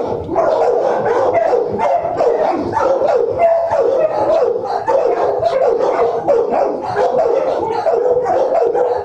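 Many dogs barking at once in a shelter kennel block, a continuous din of overlapping barks and yips with no pause.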